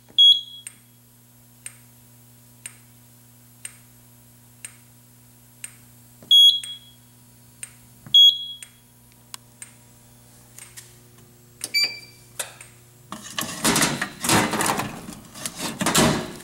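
Short, high electronic beeps from a Simplex 4100U fire alarm control panel: one just after the start and two more around the middle, with a faint tick about once a second in between. In the last few seconds there is a stretch of loud rustling and clattering noise.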